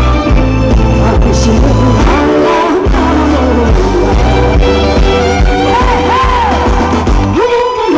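A woman singing a Korean pop song live into a handheld microphone over a backing track with a steady bass beat, amplified through stage speakers. She holds one long note through the middle, and the beat briefly drops out near the end.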